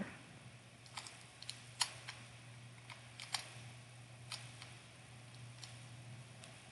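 Faint, irregular small clicks and ticks of hands wrapping clear tape around the end of a beaded popsicle-stick fidget tool, with a low steady hum underneath.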